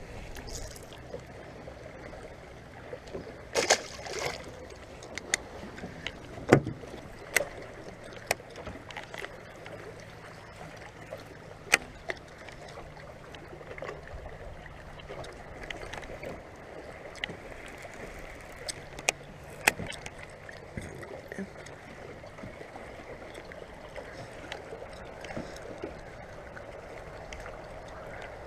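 Water lapping and moving around a small fishing boat, with a dozen or so sharp clicks and knocks scattered through it, the loudest a few seconds in.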